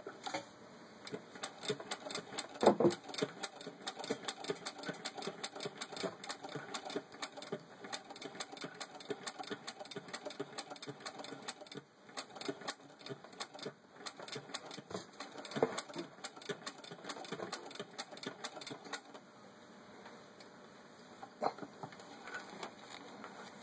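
Singer 9W treadle sewing machine, a rebadged Wheeler & Wilson No. 9, turned by hand and stitching through six layers of denim: a fast run of mechanical clicking with a few louder knocks. The clicking thins out over the last few seconds.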